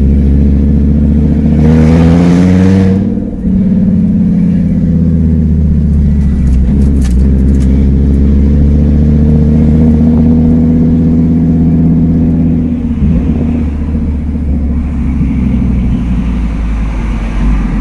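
Fiat Marea HLX's five-cylinder engine running with no exhaust, heard from inside the car: the note rises over the first three seconds, dips briefly, then holds a steady loud drone with slow swells in pitch. Wind buffets the microphone about two seconds in.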